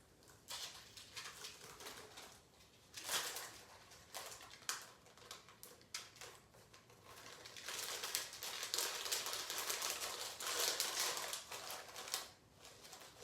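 Plastic packaging rustling and crinkling with scattered clicks as items are handled. It grows louder and more continuous about two-thirds of the way through, then drops off shortly before the end.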